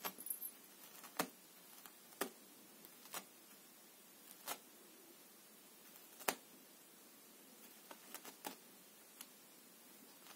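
A cat's claws catching and tearing at a wall-hung pile carpet as it sharpens them. These are short, sharp scratching snags at irregular intervals, about one every second or so.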